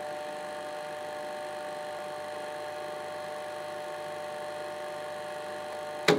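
A sustained synthesizer drone: a held chord of several steady tones. A sharp hit comes just before the end.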